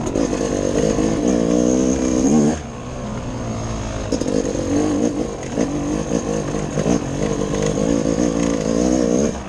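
Dirt bike engine revving up and down as the rider works the throttle, its pitch rising and falling. The rider shuts off briefly about two and a half seconds in, then gets back on the gas about a second and a half later.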